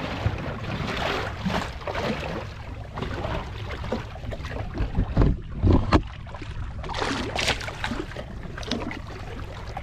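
Wind buffeting the microphone and water lapping against a small boat's hull, with a few low thumps about halfway through.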